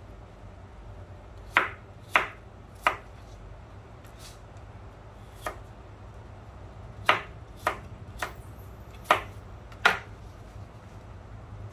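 Kitchen knife dicing peeled apple on a plastic cutting board: about nine sharp, unevenly spaced strikes of the blade through the fruit onto the board.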